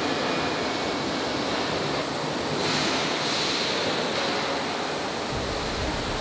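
Steady rushing roar of forge-shop machinery, with no hammer or press blows. A deeper low rumble joins about five seconds in.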